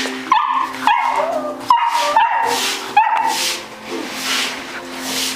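Puppies yipping: about five short, high-pitched barks in the first three seconds, then quieter.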